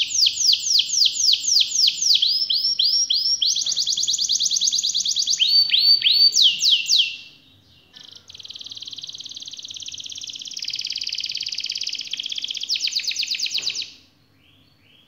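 A red-factor domestic canary singing: phrases of rapidly repeated, downward-sweeping notes, a brief pause about seven seconds in, then one long, fast rolling trill lasting about six seconds that ends abruptly near the end.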